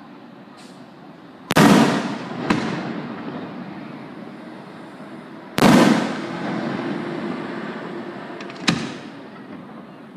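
Aerial firework shells bursting: two loud booms about four seconds apart, each trailing off in a long rolling echo, and a smaller bang after each of them.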